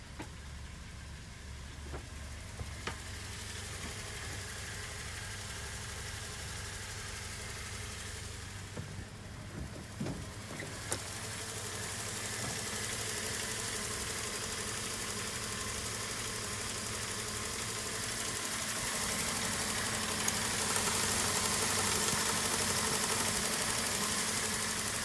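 Toyota HiAce's 2RZ 2.4-litre inline-four petrol engine idling steadily, with a few sharp clicks in the first half. It grows louder from about halfway through, heard close up through the open engine bay.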